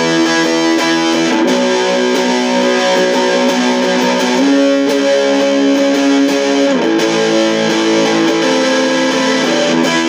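Electric guitar playing sustained distorted chords through a Vox Satchurator distortion pedal, Caline Clear Boost and Mooer Yellow Compressor, the chord changing every two to three seconds.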